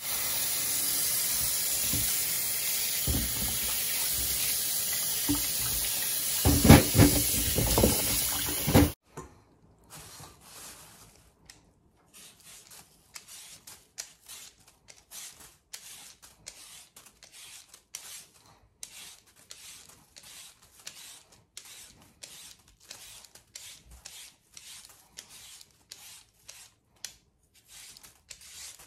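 Kitchen tap running into a stainless steel bowl of raw sweet potatoes, with a few knocks as the potatoes are handled; the tap is shut off about nine seconds in. Then a Y-peeler scrapes the skin off a sweet potato in short, quieter strokes, about two or three a second.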